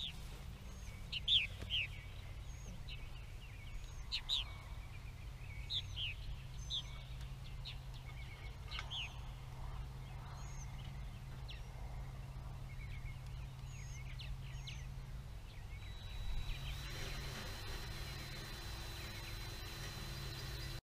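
Purple martins giving scattered short chirps and calls, agitated by a disturbance at their nest houses, over a low steady hum. The calls come thickly for about ten seconds and then thin out. A thin steady high tone sets in about two-thirds of the way through.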